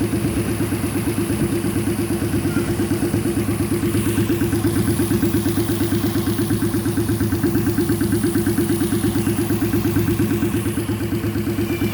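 A 1000cc car engine fitted to a custom-built motorcycle, running steadily with an even, rapid exhaust pulse and no revving.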